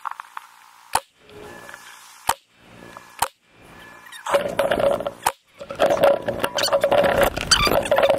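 Three AR-15 rifle shots about a second apart, at steel spinner targets. From about four seconds in, a dense, continuous clattering chatter of many sharp clicks takes over.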